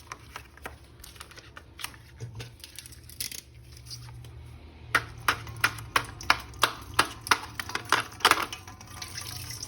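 A series of sharp clicks and taps of hard plastic as an action figure is handled. They come scattered at first, then about three a second from about halfway through.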